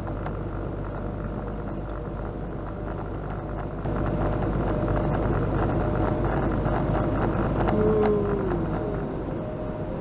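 Semi truck's diesel engine and road noise heard inside the cab while driving at highway speed, a steady rumble that gets louder about four seconds in and eases again near the end.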